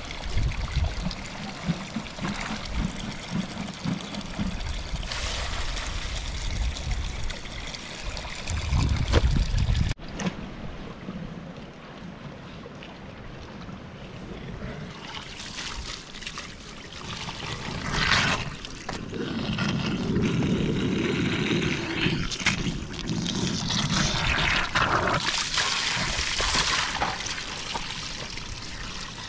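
Water trickling and splashing, with an abrupt change in the sound about ten seconds in.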